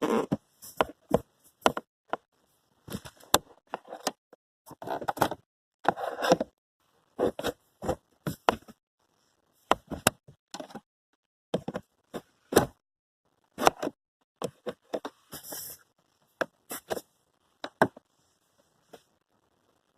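Irregular knocks, clicks and short scrapes of hand work with tools and parts, some tens of separate hits with brief pauses between them, stopping a couple of seconds before the end.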